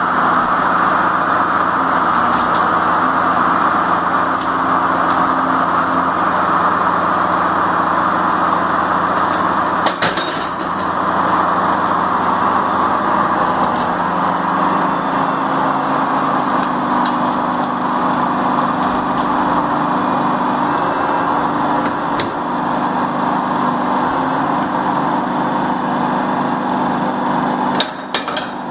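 Extra-large log-trimming circular saw running and cutting along the side of an oversized log: a steady, loud machine noise over a low motor hum, with a single knock about ten seconds in.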